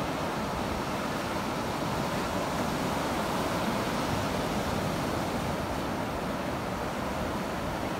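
Ocean surf breaking and washing up the beach: a steady, unbroken rush.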